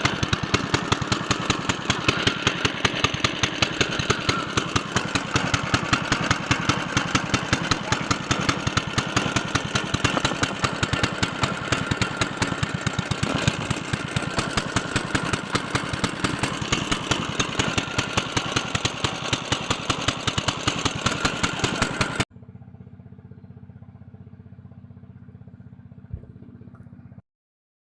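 A small engine running steadily with a rapid, even pulse; it cuts off abruptly about 22 seconds in, leaving a much quieter steady hum that stops a few seconds later.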